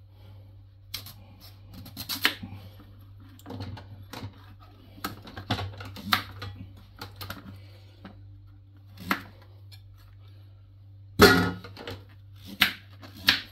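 Kitchen knife cutting through raw peeled butternut squash and knocking on a plastic cutting board: irregular taps and chops, the loudest about eleven seconds in, with a low steady hum underneath.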